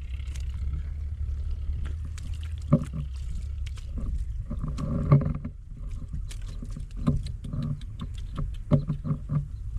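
Shallow water sloshing and splashing in irregular bursts, with knocks and splashes over a steady low rumble; the strongest splashes come about three and five seconds in.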